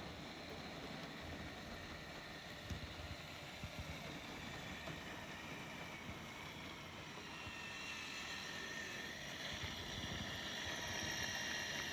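Electric motor and gear whine of an Axial SCX6 RC crawler running on 3D printed tracks. The whine grows louder and shifts in pitch in the second half, with a few light knocks about three to four seconds in.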